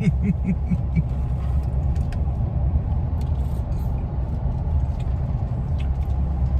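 Car running, a steady low rumble heard from inside the cabin. A short hummed voice sounds in the first second, and there are a few faint clicks.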